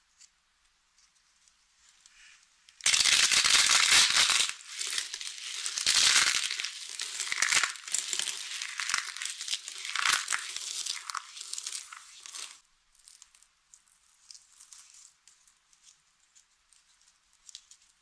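Thin slices of dry soap being crushed between the hands: a loud, dense crackling crunch that starts about three seconds in, lasts about ten seconds and stops abruptly, followed by faint clicks of soap pieces being handled.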